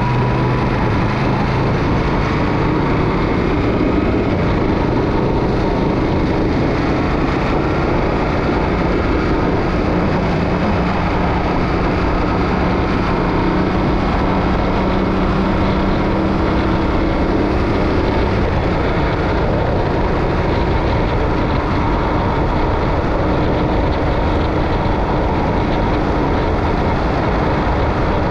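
Yamaha Ténéré 700's 689 cc parallel-twin engine running steadily on the move, under a constant wash of wind and road noise; the engine's pitch shifts a little partway through.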